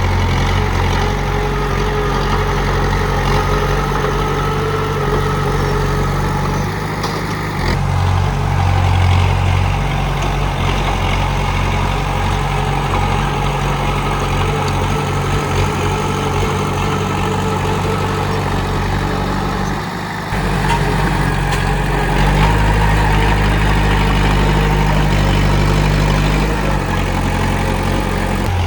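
Komatsu D31P bulldozer's diesel engine running steadily at work. Its low drone changes in pitch and level about a quarter of the way in, and twice more about two-thirds of the way through.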